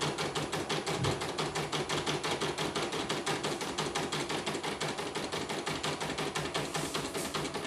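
Portable computerized embroidery machine stitching at speed: a rapid, even clatter of the needle bar at roughly ten stitches a second.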